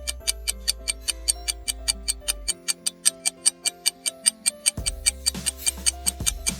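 Background music with a steady ticking beat, about five ticks a second, over held synth-like notes. The bass drops out about two and a half seconds in and comes back with a short swell near the five-second mark.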